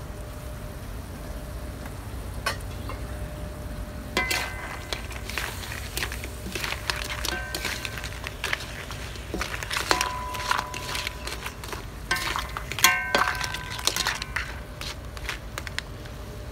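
Wooden spatula stirring mud crab pieces in a metal wok: irregular scraping and clacking of shells against the pan, the wok ringing briefly on the harder knocks, starting about four seconds in over a low steady rumble.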